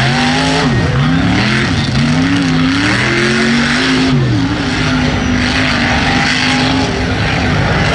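Lifted mud truck's engine revving hard through a mud hole, its pitch rising and dipping several times, then holding steady through the second half, over a loud rushing noise of water and mud thrown by the big tires.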